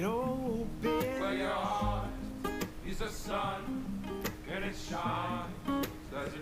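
Background music: acoustic guitar strumming under a singing voice.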